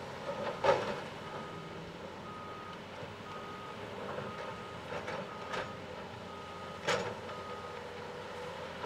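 Diesel excavator engines running steadily while a backup alarm beeps about once a second. Twice, about a second in and again near the end, rock strikes a steel excavator bucket with a loud clank.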